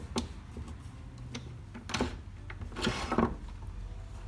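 Light clicks and knocks of small objects being handled at a workbench, with a short scuffing rustle about three seconds in, over a low steady hum.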